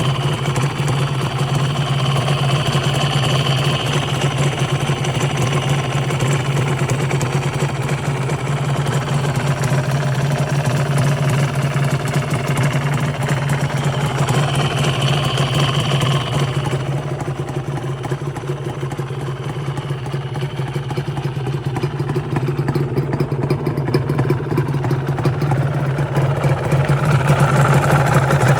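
Honda NSR250's two-stroke V-twin engine idling steadily. It has a mechanical noise from the crank that the owner cannot tell is normal or a fault. The engine gets slightly louder near the end.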